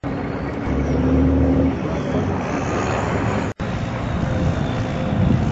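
M35 6x6 army truck's engine running steadily under load as it drives off-road, with a brief cut in the sound about three and a half seconds in.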